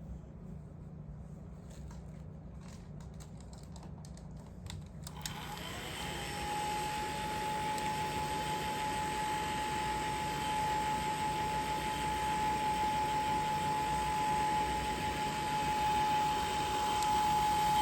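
A hair dryer is switched on about five seconds in and runs steadily: an even rush of air with one steady motor tone that slides up as it comes to speed. Before that there is only a faint low hum and a few light clicks.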